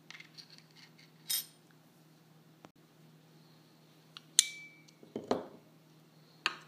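Handling of small metal parts on a hard surface: a few light clicks and a clink from the thin metal plate, then a sharp metal click with a brief ring and a duller knock on wood as the metal snap pliers are seated in the wooden base stand, and a last click near the end.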